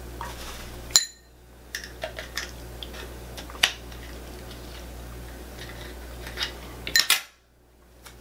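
Hard shell of a cooked lobster being cracked and cut apart: a series of sharp clicks and cracks, the loudest about a second in and a cluster near the end, with lighter clinks of utensils in between.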